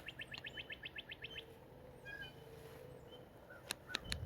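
Songbirds calling faintly: a fast trill of short high notes, about ten a second, for the first second and a half, then a few scattered chirps. Three sharp clicks near the end.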